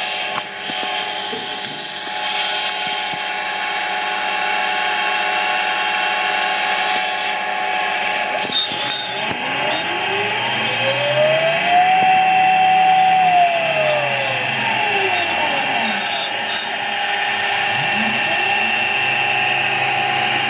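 CNC-converted Sieg X2 mini mill running with a steady motor whine. About halfway through, the stepper motors' whine rises in pitch, holds, then falls again as an axis makes a move, and a second such rise starts near the end.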